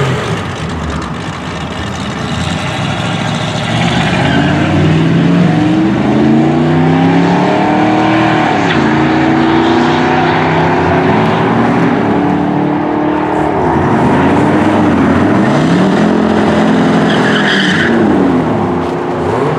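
Car engine accelerating hard at full throttle. Its pitch climbs in long sweeps and drops back sharply at each upshift, three times.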